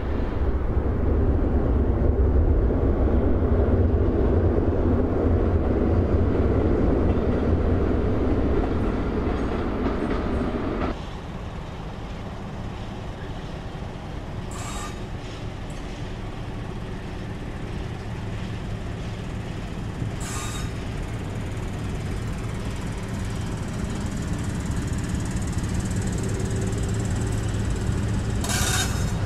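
Diesel railcar running over a viaduct, with road traffic beneath. About eleven seconds in, the sound cuts to a quieter, steady diesel hum from an approaching diesel railcar, which grows gradually louder. Three brief high wheel squeals come during this part.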